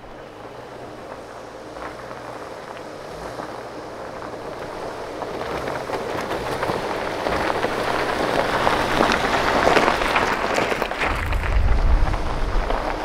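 Subaru Outback Wilderness driving over a loose gravel road toward the camera: tyres crunching and crackling on the gravel, growing steadily louder as it approaches, with a deep rumble joining near the end as it draws close.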